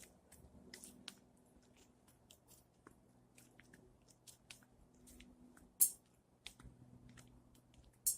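A squirrel gnawing and chewing food close by: a run of small, sharp crunching clicks, with two louder cracks about six and eight seconds in.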